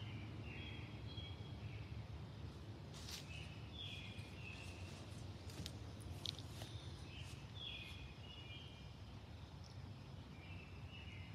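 Songbirds singing, short phrases of clear notes repeated every second or so, over a steady low rumble, with a few sharp clicks in the middle.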